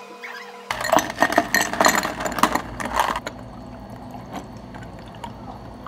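Ice cubes clattering into a tall glass for about two and a half seconds, starting suddenly about a second in, then water poured from a pitcher over the ice, with scattered light clinks.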